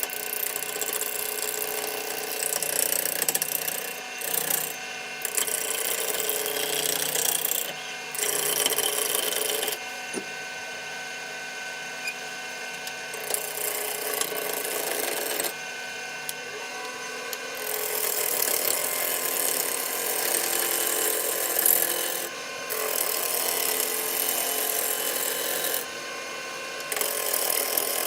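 Woodworking lathe running while a turning tool cuts a glued-up walnut blank down to round, the cutting noise coming and going in passes every few seconds over the steady hum of the machine.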